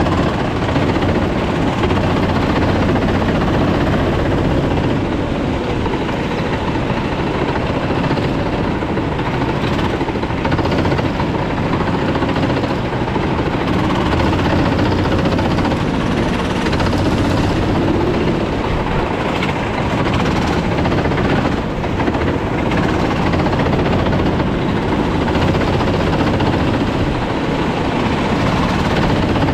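Sodi rental kart's four-stroke engine running hard under race load, heard onboard, with other karts' engines close by.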